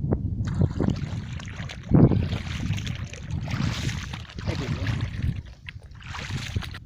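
Water splashing and trickling, with wind rumbling on the microphone and a single knock about two seconds in.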